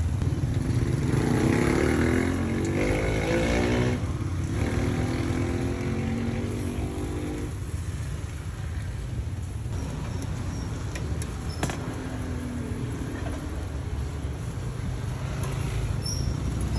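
Street traffic: a motor vehicle's engine drones and shifts in pitch as it passes, loudest in the first few seconds, over a steady low rumble.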